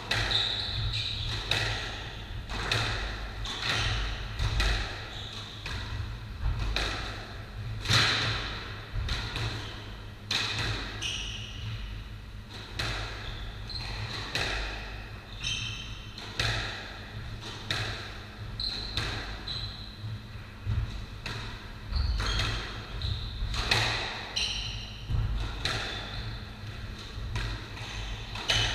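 Squash rally: the ball smacking off rackets and the court walls in a quick, steady exchange, with shoes squeaking on the wooden floor between shots.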